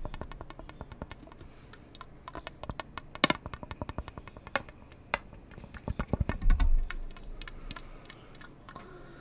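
Close-miked ASMR tapping: fast runs of light clicks and taps, with a sharper loud click about three seconds in and a few heavier, deeper knocks around six to seven seconds.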